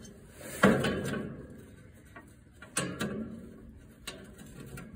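Sheet-metal tractor dash panel clanking and scraping against the frame as it is worked into place by hand: a sharp clank about half a second in that rings briefly, a second clank about three seconds in, and light taps near the end.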